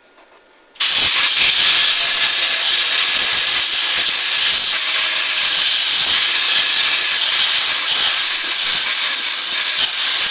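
Cutting torch slicing a taper into a steel truck frame rail: a loud, steady hiss that starts abruptly about a second in.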